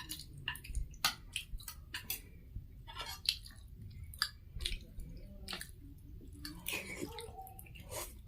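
Close-miked chewing of food, with irregular wet mouth smacks and clicks.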